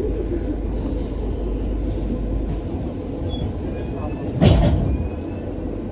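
Double-decker bus running, heard from the upper deck: a steady low rumble of engine and road. About four and a half seconds in there is a single brief, loud knock.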